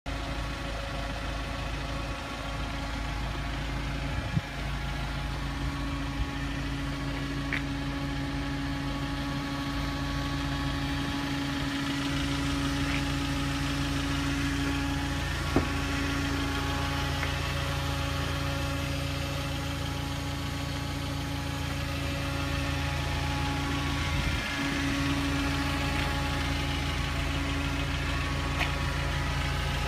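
Iveco Daily 50C15 diesel engine idling steadily, with a couple of sharp knocks over it.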